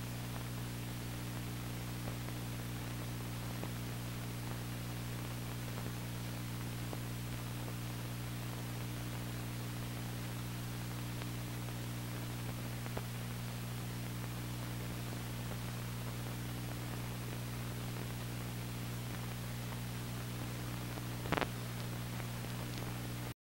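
Steady hiss with a low electrical hum, the background noise of an old analog film or video transfer. A single short click sounds near the end.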